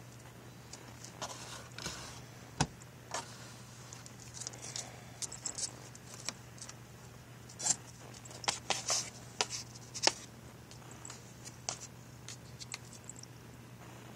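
Cat playing in a cardboard box: irregular taps, scratches and scuffs of paws and claws on cardboard as it bats at dangling cords, in scattered clusters, with a low steady hum underneath.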